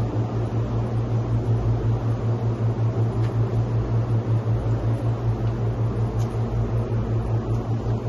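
A steady low machine hum with a fast, even pulsing, over a constant hiss, of the kind a running fan or motor makes.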